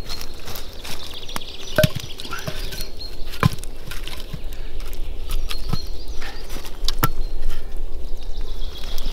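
Wooden sticks of firewood knocking together as they are picked up and moved by hand at a woodpile, with a few sharp wooden knocks standing out.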